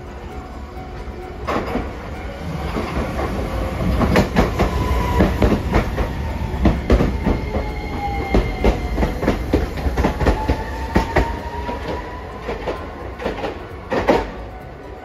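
A Hiroshima Electric Railway tram running past on the rails, its wheels clacking over the rail joints in a long run of sharp clicks over a low rumble. A motor whine dips and then rises in pitch through the middle, and a last cluster of clacks comes near the end.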